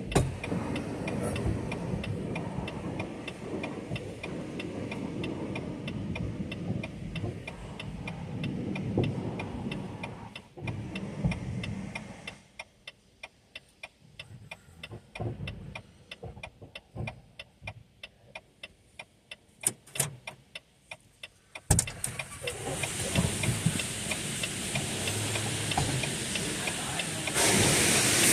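Pressure-washer spray hitting the semi truck, with a steady, even ticking throughout. The spray stops about twelve seconds in. It starts again with a knock a little before two-thirds of the way through and becomes a loud high hiss near the end.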